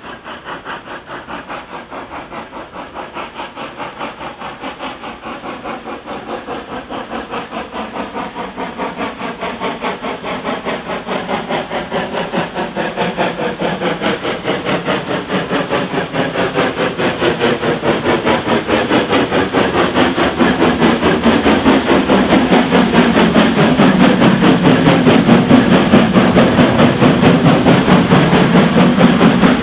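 Steam locomotive working hard, its exhaust beats in a rapid, even rhythm, growing steadily louder as it approaches.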